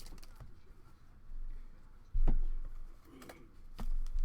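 Two dull thumps of handling, the louder one about two seconds in and a smaller one near the end, with a few light clicks between.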